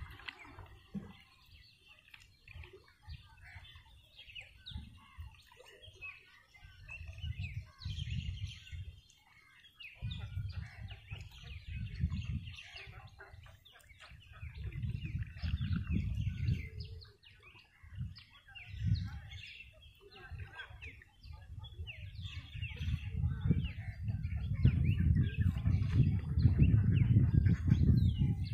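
Birds chirping and calling over open wetland, with irregular bursts of low rumbling that grow loud near the end.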